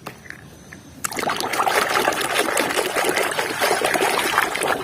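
Water trickling and splashing, starting about a second in, as toy vehicles are washed.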